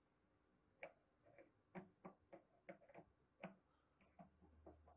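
A string of faint, irregular small clicks as the wire's terminal screw on an electric water heater's new heating element is tightened down.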